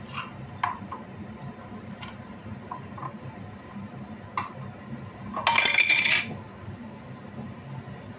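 Lidded frying pan of shakshuka tomato sauce simmering on a gas burner, with a steady low hum and scattered small ticks. A short, loud clatter comes about five and a half seconds in.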